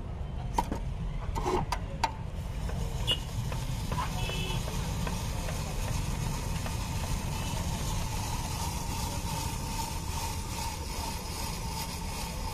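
Steady low rumble of street traffic, with a few sharp metal clicks in the first two seconds from the steel spiral potato cutter as the skewered potato is fitted onto it.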